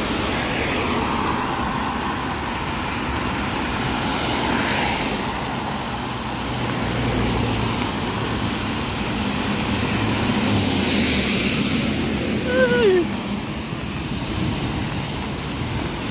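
Cars driving past on a rain-wet road: a steady hiss of tyres on wet tarmac with engine noise, swelling twice as vehicles go by. A short, wavering squeal sounds about two-thirds of the way through.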